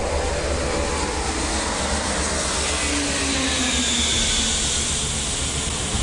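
Antonov An-225's six turbofan engines at take-off power as it climbs out low overhead: a steady rush of jet noise, with engine tones that slide down in pitch as it passes.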